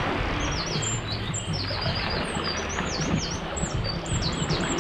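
Small songbirds chirping and singing in quick runs of short, falling notes over a steady rush of surf.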